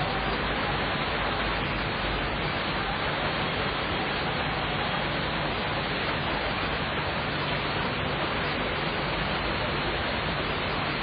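Steady rain falling, an even hiss with no thunderclap in this stretch.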